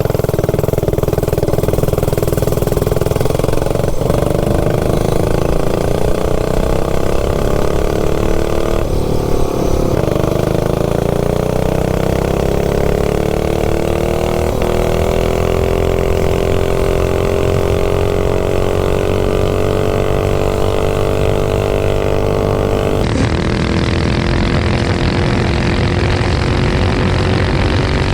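Single-cylinder stage 3 minibike engine running hard under riding, its pitch climbing as the bike accelerates. It dips briefly about nine seconds in and then climbs again. The sound changes abruptly about 23 seconds in.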